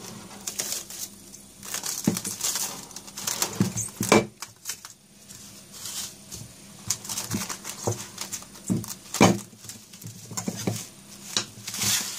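Plastic cling film crinkling and rustling as it is pulled from the roll and stretched tight over a glass dish, with a few sharper clicks and knocks among the crackles.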